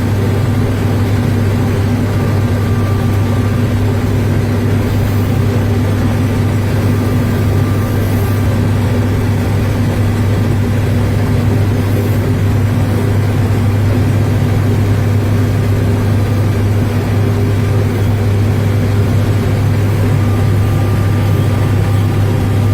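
An engine running steadily at a constant speed, a loud, unchanging low hum.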